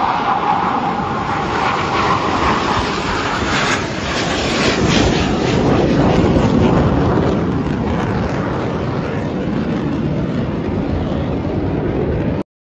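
Jet engine noise from a formation of BAE Hawk trainer jets flying past: a loud, steady rushing sound that cuts off abruptly near the end.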